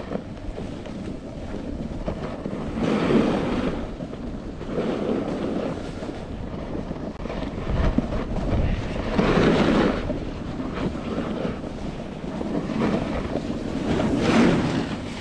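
Wind buffeting the microphone over the hiss of edges sliding and scraping on groomed snow during a downhill run, swelling every few seconds with each turn.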